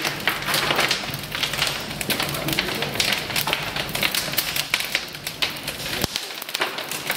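Wood fire crackling in the open furnace of a Galloway boiler as it is stoked, with dense, irregular crackles and knocks of wood pieces landing on the fire.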